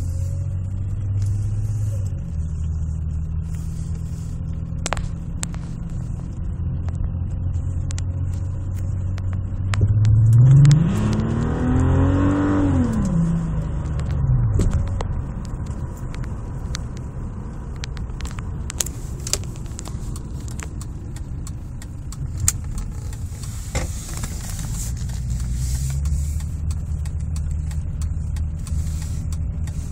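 VW Jetta's 12-valve VR6 engine idling unevenly with a misfire at idle, the sign of cylinders dropping out. About ten seconds in the throttle is blipped once: the engine revs up and falls back to idle within a few seconds.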